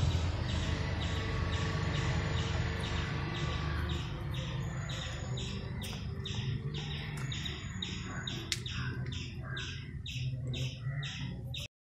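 Steady, evenly spaced chirping, about two to three chirps a second, over a low rumble that fades after the first few seconds. It cuts off suddenly near the end.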